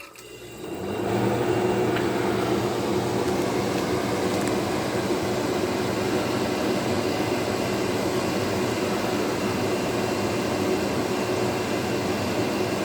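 Vintage KitchenAid KDH20 dehumidifier by Hobart switched on: its fan spins up within about a second, then the unit runs with a steady whoosh of air and a steady hum.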